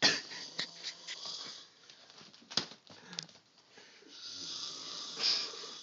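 A sleeping man snoring heavily, with a long hissing snore building to a peak near the end. A sudden loud burst at the start and a few sharp clicks come in between.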